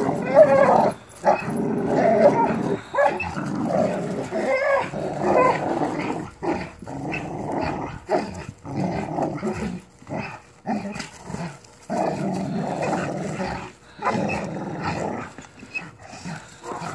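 Dogs growling in play while tugging hard on a rope toy, the growls coming in stretches of a second or two broken by short pauses.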